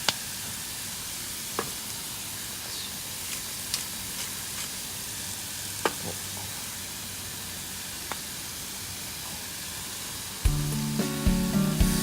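Food sizzling as it fries in a pan: a steady hiss with scattered sharp pops. Background music with a beat comes in near the end.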